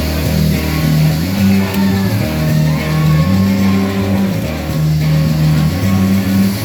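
Rock music with guitar over a bass line that moves between held notes.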